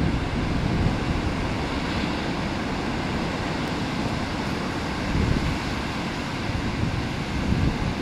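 Ocean surf breaking and washing, a steady rush with a low rumble of wind buffeting the microphone.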